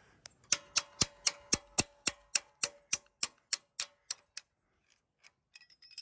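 Ratcheting wrench clicking in a steady rhythm, about three to four clicks a second with a slight metallic ring, as a bolt is turned by hand; the clicking stops a little over four seconds in.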